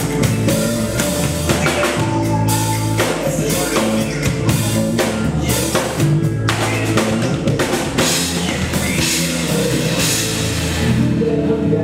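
Drum kit played live, with rhythmic kick, snare and cymbal hits over sustained bass and synth notes from a backing track. The drumming thins out near the end.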